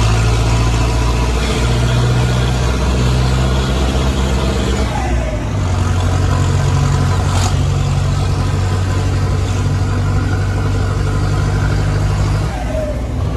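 Jeep engine running loud under way with its muffler removed. The engine note shifts about five seconds in, holds steady, and eases off near the end.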